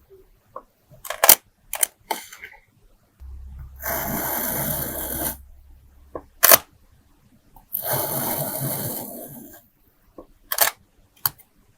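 Kinetic sand being squished: two stretches of rustling, grainy noise lasting a second or two each, with several sharp clicks and taps between them.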